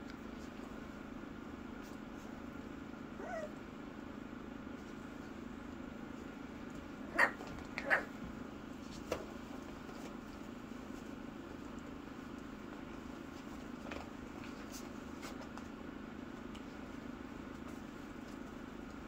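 Three-week-old miniature Bordoodle puppies vocalising: a short, falling whimper about three seconds in, then two sharp yips close together around the middle and a smaller one a second later, over a steady low hum.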